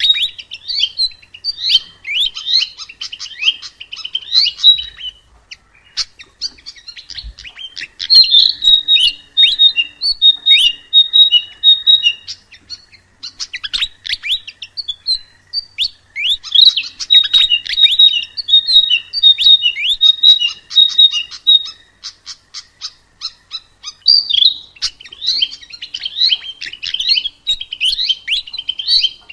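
A sikatan emas, a Ficedula flycatcher, singing long runs of rapid, high chirping notes, with a few short pauses between the runs.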